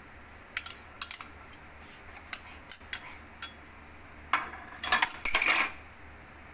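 A spoon clinking and scraping against ceramic bowls as beaten egg is emptied from a small bowl into a larger one. There is a scattering of short clinks, then about a second and a half of louder scraping just past the middle.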